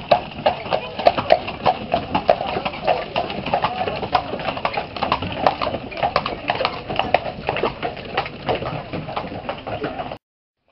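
Horse-drawn carriages passing close by: the hooves of heavy horses clip-clopping in a dense, irregular patter on a packed-earth lane. The sound stops abruptly about ten seconds in.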